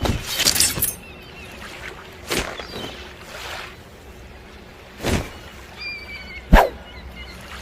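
Folding sword being flicked open and shut: a series of separate swishes and sharp snaps a second or two apart, the sharpest snap coming near the end.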